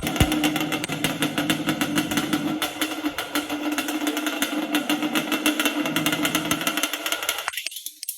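Yamaha Banshee's 350 cc two-stroke parallel-twin engine running at a steady idle, a fast, even pulsing. It cuts off abruptly near the end.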